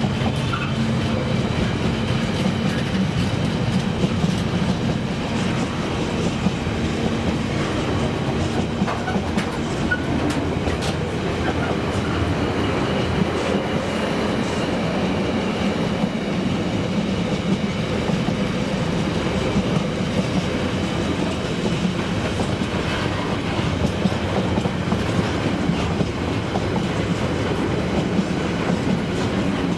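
Container wagons of a freight train rolling steadily past, with a constant rumble of wheels on rail and a clickety-clack of wheels over the rail joints.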